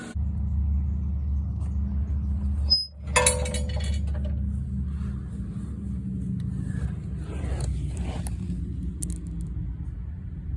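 Toyota Highlander Hybrid with a steady low rumble. About three seconds in the sound drops out briefly, then a short, high-pitched screech follows and fades within about a second.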